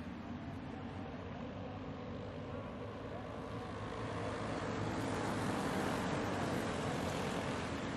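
Engines of a pack of racing karts running around the track, growing louder about four seconds in as the karts come through the nearby turn.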